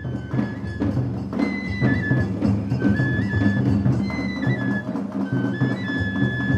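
Japanese festival ohayashi music: a high bamboo flute (shinobue) plays a melody of held, stepping notes over steady taiko drum beats.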